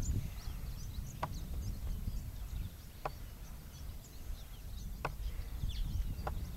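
Outdoor ambience of wind rumbling on the microphone, with small birds chirping faintly throughout and a few brief, sharper calls spaced a second or two apart.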